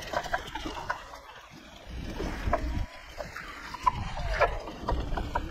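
Wind buffeting an action camera's microphone as a bicycle rides along a trail, with a gusty low rumble that rises and falls and scattered short rattles and clicks from the bike.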